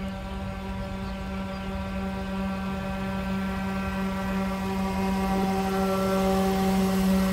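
Radio-controlled 1:40 scale Fjellstrand Flying Cat catamaran ferry model under way, its motor drive giving a steady droning hum at one pitch that grows louder as the boat approaches.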